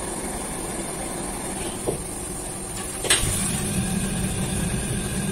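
Steady roar of a restaurant wok station's gas burner and extractor hood, with a metal ladle knocking against the wok twice. The low roar grows louder about three seconds in.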